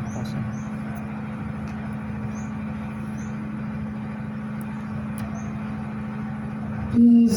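A steady low hum with a rumbling undertone, like a running motor or traffic. Near the end a woman's voice starts loudly, beginning a chanted Quran recitation.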